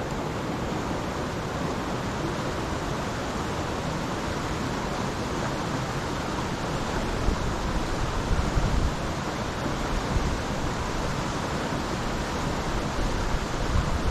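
Steady rush of a mountain trout stream's flowing water, swelling louder at times in the second half.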